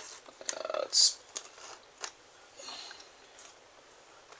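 Adhesive seal tape being peeled off a cardboard box flap: a quick crackling rip about half a second in ends in a short, sharp tear about a second in. Scattered small clicks and a faint rustle of the cardboard follow.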